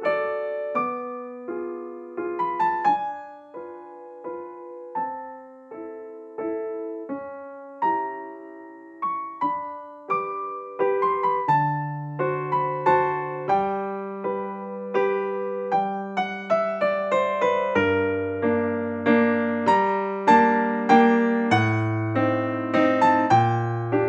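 Background piano music: a gentle melody of separate, fading notes. Bass notes join about halfway, and the playing grows fuller toward the end.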